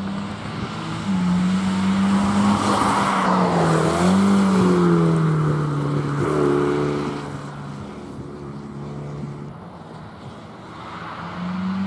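Race car engine at high revs passing close, with tyre noise on the wet asphalt. The engine note falls in pitch as the car goes by, then fades as it pulls away. Near the end another engine grows louder as a car approaches.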